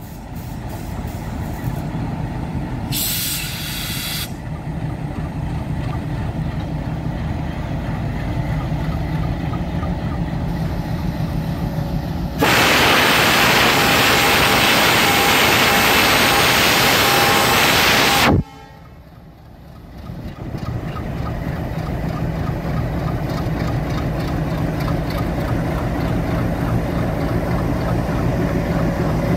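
Diesel locomotive engine running with a steady low rumble as the train pulls slowly out of the station. There is a brief air hiss about three seconds in. From about twelve seconds a much louder hiss of compressed air lasts some six seconds and cuts off suddenly.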